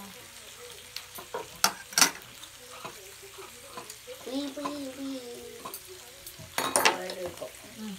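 Meat sizzling on a hot barbecue griddle pan as it is turned with metal chopsticks. Sharp utensil clacks come twice about two seconds in and in a quick cluster near the end.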